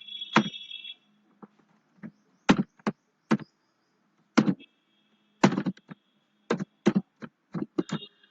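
Typing on a computer keyboard: irregular single keystrokes and short clusters of clicks with pauses between them, as code is typed in.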